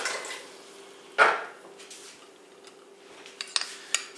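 Kitchen utensil clatter: one sharp clank about a second in, then a few light clinks of a metal spoon against a small mixing bowl of cornstarch and water near the end.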